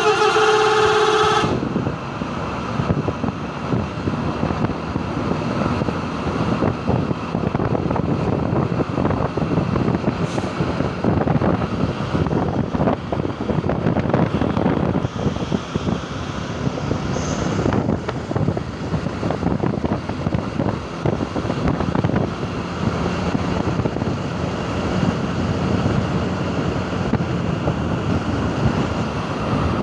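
A Basuri 'telolet' musical bus horn plays a warbling chord of several tones and cuts off about a second and a half in. After that comes steady road traffic noise, with wind buffeting the microphone.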